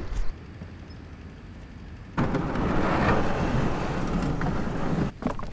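A loaded Bonafide fishing kayak's plastic hull scraping and grinding over a gravelly ramp as it is pushed toward the water. The scraping starts about two seconds in, runs steadily for about three seconds, then stops.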